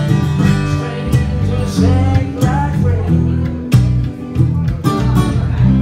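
Acoustic guitar strummed in a steady rhythm, ringing chords with a sharper stroke about three and three-quarter seconds in.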